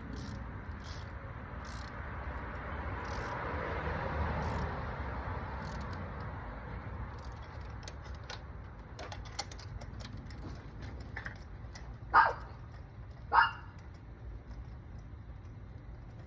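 A dog barks twice, about a second apart, near the end. Under it there is a steady background noise that swells and fades in the first few seconds, with light metallic clinks scattered through.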